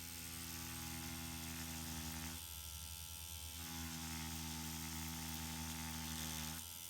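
Permanent-makeup (microblading) machine running with a steady electric buzz while it draws hair strokes on practice skin; the buzz thins briefly about two and a half seconds in, then carries on.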